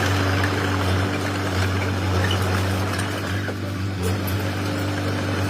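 Komatsu D21P mini bulldozer's diesel engine running at a steady speed.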